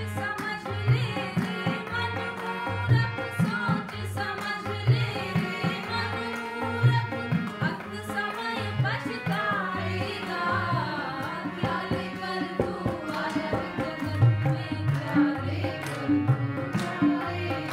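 A Hindu devotional bhajan sung by a group to hand-drum accompaniment, the drum keeping a steady beat of low strokes about a second apart under the melody.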